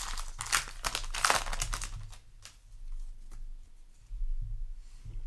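Foil booster pack wrapper being torn open and crinkled, a dense run of sharp crackles in the first two seconds, then a few sparse crinkles. A steady low hum sits underneath.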